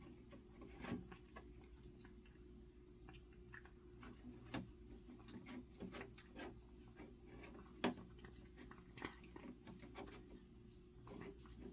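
A cat recovering from tooth extraction surgery for stomatitis eating: faint, irregular chewing clicks, one of them louder about two-thirds of the way in, over a low steady hum.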